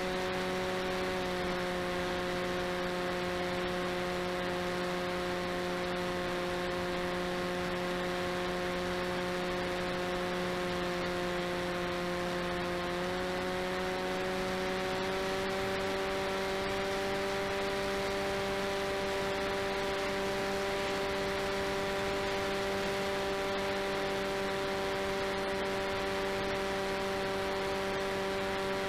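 RCTimer 5010 630KV brushless motor and propeller of a delta-wing FPV plane in flight, heard through the onboard camera: a steady whine over a hiss of wind rush. The whine dips slightly about a second in, then the motor speeds up a little, rising in pitch, about thirteen seconds in.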